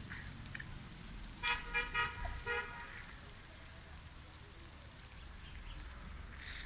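Steady rain falling on leaves, a parked car and stone paving. About a second and a half in, a car horn sounds a quick series of short toots lasting about a second, louder than the rain.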